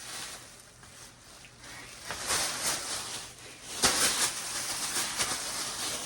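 Rustling and brushing sounds, coming in several short swishes, the loudest about four seconds in.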